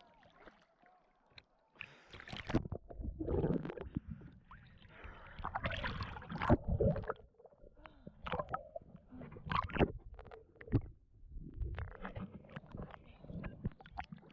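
Lake water splashing and sloshing close to the microphone in irregular bursts with low thuds, starting about two seconds in.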